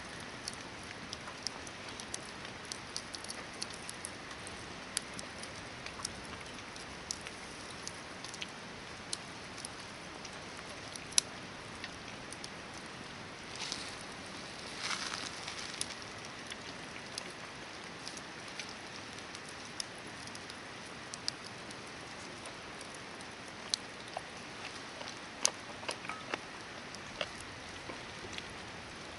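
Hardwood campfire crackling, with irregular sharp pops over a steady hiss of burning, and a brief louder rustling hiss about halfway through.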